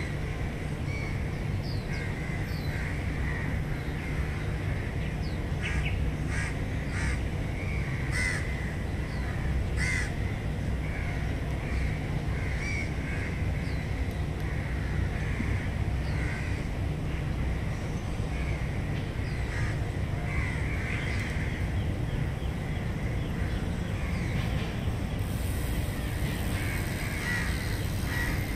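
Birds calling again and again over a steady low hum of city traffic.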